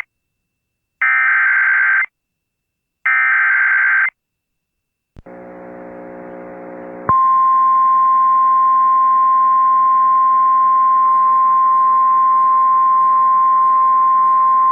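Emergency Alert System header data bursts: two harsh one-second warbling squawks a second apart, the end of the three-burst SAME header. After a short gap a faint hum and static comes in. About seven seconds in, a single steady attention tone near 1 kHz starts and holds, the 1050 Hz weather-radio alert tone that precedes the warning.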